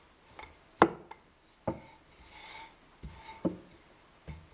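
Rolling pin rolling out a sheet of brioche dough on a floured worktop: several sharp knocks as the pin is set down and shifted on the board, with a soft rubbing as it rolls over the dough.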